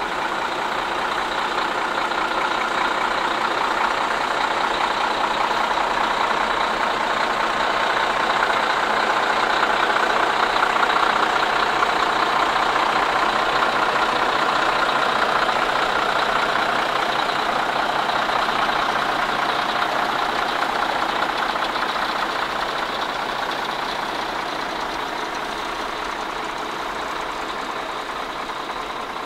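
A large engine running steadily, growing louder to a peak about ten seconds in and then slowly easing off.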